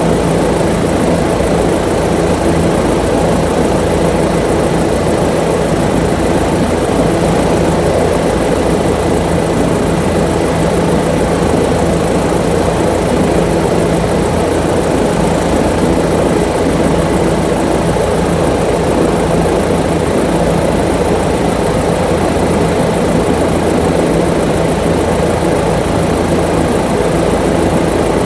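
Steady, loud drone of a small aircraft's engine and propeller, heard from inside the aircraft in flight.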